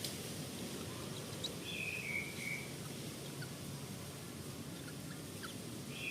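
A bird calling: a short phrase of about three notes stepping down in pitch, about two seconds in, with the same phrase starting again at the very end. A steady low outdoor rumble underlies it, with faint scattered chirps.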